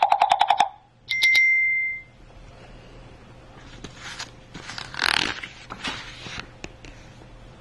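A sound book's small electronic speaker finishes a rapid tapping effect of a woodpecker pecking, then gives a short high beep. About four to six seconds in comes the rustle of a paper page being turned.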